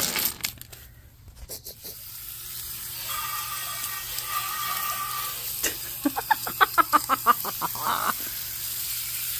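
Water sprayed onto a pile of obsidian rocks on concrete to wash them: a steady hissing spray and splatter that builds about two seconds in. Around six seconds in, a quick run of rapid pulses, about six a second, rises over it for a couple of seconds.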